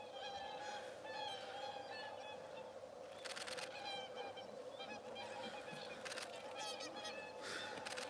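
A flock of whooper swans calling, many short overlapping honks at once, with a few brief rushes of noise.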